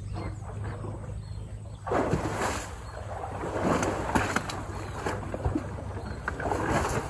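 Canal water sloshing and splashing as a wild elephant heaves itself up the bank, in irregular surges that start suddenly about two seconds in.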